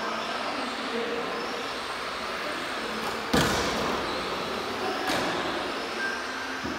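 Tamiya TT01E 1:10-scale electric RC racing trucks running on the track, their motors whining with gliding pitch over steady tyre noise. A sharp knock about three seconds in is the loudest sound, with a lighter one about two seconds later.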